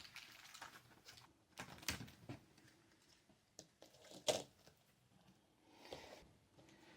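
Faint plastic clicks and taps from a laptop screen bezel being pried loose at its tight hinge cover, a few scattered clicks with the sharpest one a little past the middle.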